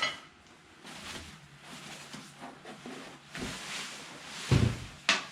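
Rack parts and packaging being handled during unboxing: light rustling and knocking, with a heavier thump about four and a half seconds in and a sharp click just after.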